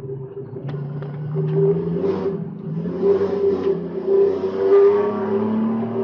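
BMW E46 race car's inline-six engine heard from inside the cabin under acceleration, its note climbing steadily in pitch over the last few seconds. A few light clicks and a short rush of noise come about two seconds in.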